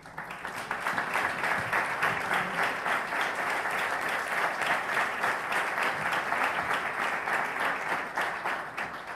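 Audience applauding: a steady run of many hand claps that dies away near the end.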